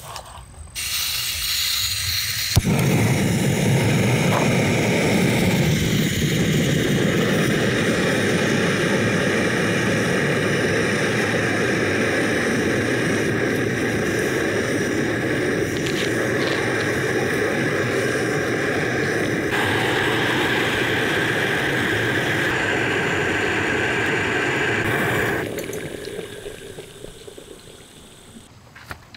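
Jetboil Flash canister stove being lit and burning: gas hisses on, a sharp click of the igniter comes about two and a half seconds in, then the burner runs with a loud, steady rush of flame. The rush dies away a few seconds before the end.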